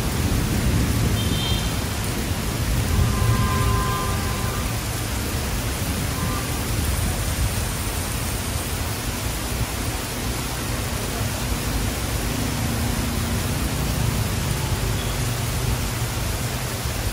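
Heavy tropical downpour: a steady hiss of rain pouring onto the street, under a low rumble of motorbike and car traffic on the wet road.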